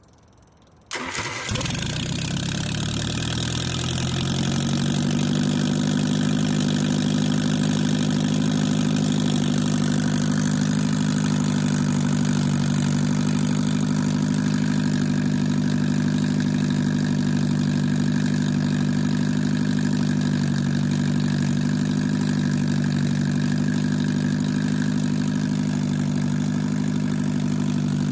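Freshly rebuilt MGA B-series four-cylinder engine, running without a muffler, starts about a second in. Its revs climb for a few seconds, then it runs steadily.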